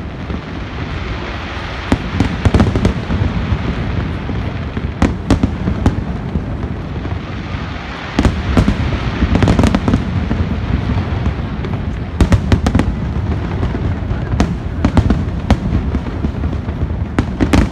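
Aerial fireworks display: repeated booms of bursting shells and clusters of sharp crackles, in waves a few seconds apart, over a constant low rumble.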